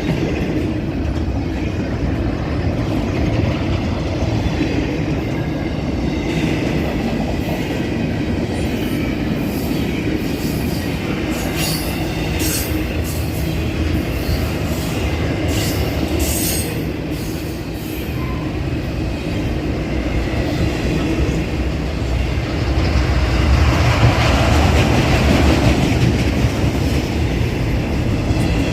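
Intermodal freight train rolling past with a steady low rumble and the clatter of its wheels on the rails. In the middle there are brief high-pitched squeals from the wheels.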